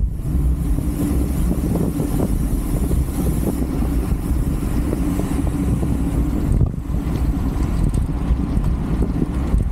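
Wind buffeting a bike-mounted camera's microphone at racing speed: a loud, steady low rumble that dips briefly about seven seconds in.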